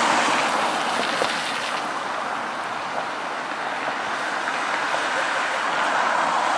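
A steady rushing noise with no distinct events.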